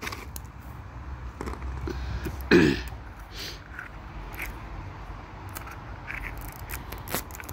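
Hands picking at and handling a small plastic toy capsule ball and its packaging: scattered small clicks, scrapes and rustles, with one louder short sound about two and a half seconds in.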